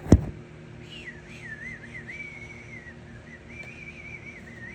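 Two sharp knocks, then a person whistling a wavering tune.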